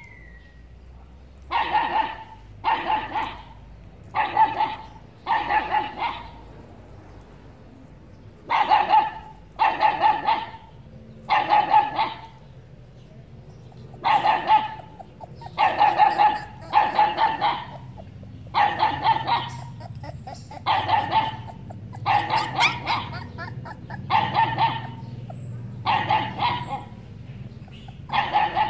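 Dog barking repeatedly, in runs of two to four loud barks with short pauses between, the barks coming closer together in the second half.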